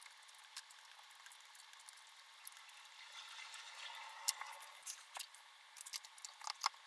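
Small screws being turned out of an aluminium equipment chassis with a screwdriver: faint scraping with scattered light clicks, and a run of sharper metal clicks in the second half as screws and the metal housing are handled.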